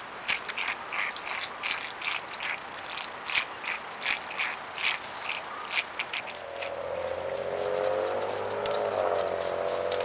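Javelina drinking from a water bowl: a run of short, wet lapping sounds, about three a second. From about six seconds a steady droning hum, like a distant engine, comes in and rises slightly near the end.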